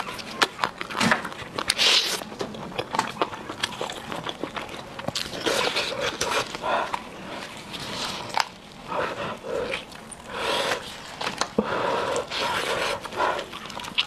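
Close-up eating sounds of steamed chicken: wet chewing and mouth smacking, then the soft, wet tearing of the chicken's flesh and skin as it is pulled apart by hand, with scattered crackling clicks throughout.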